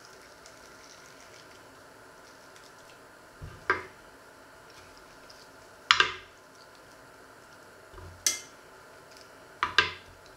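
Kitchen knife knocking against a wooden cutting board while cutting plums. Four sharp clicks with a brief ring, a couple of seconds apart.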